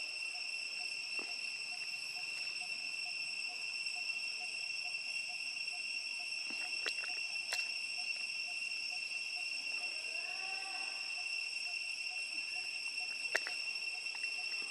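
A steady, high-pitched chorus of insects buzzing, with a faint regular pulsing underneath. A few sharp clicks break in, twice around the middle and once near the end.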